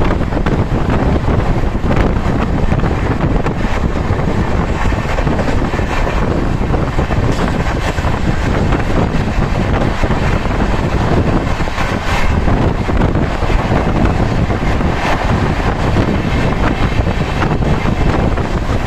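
Moving Indian Railways express train heard from inside the coach: a steady, loud rush of running noise, with wind buffeting the microphone.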